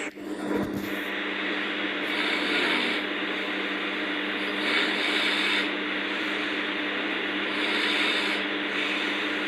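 A person snoring in sleep: rasping breaths that swell about every three seconds, three in all, over a steady low hum.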